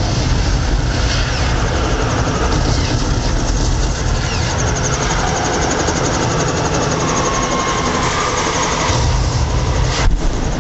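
Loud, continuous vehicle noise with a heavy low rumble, from a car and a helicopter running.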